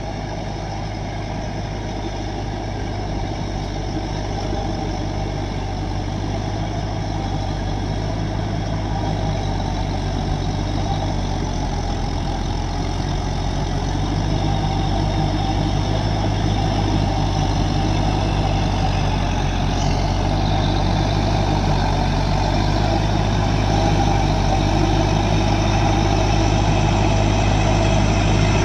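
Heavy vehicle's diesel engine running steadily, growing gradually louder as it comes closer.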